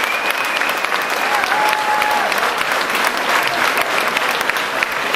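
Concert audience applauding: dense, steady clapping from a club crowd, with two brief held high tones rising above it.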